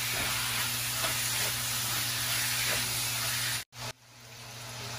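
Pork pieces sizzling in hot oil in a steel wok, stirred with a wooden spatula. The sizzle cuts out abruptly nearly four seconds in, then fades back up.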